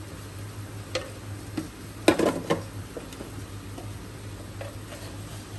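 A few light clicks and knocks of kitchen utensils against a metal cooking pot. The loudest cluster comes a little after two seconds in, over a low steady hum.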